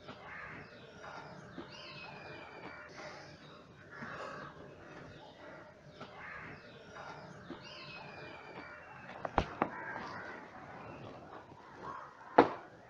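Birds calling again and again in the background, each call short, recurring every couple of seconds. Two sharp knocks come close together about nine seconds in, and a louder single knock near the end.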